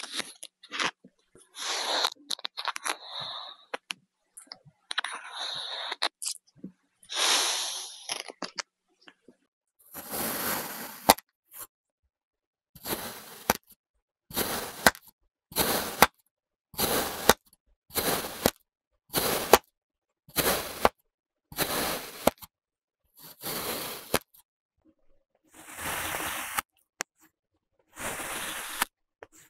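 A blade cutting through kinetic sand with a crisp, crunchy scrape. It starts as a busy stretch of uneven scraping and small clicks, then settles into separate slicing strokes about one every second or so.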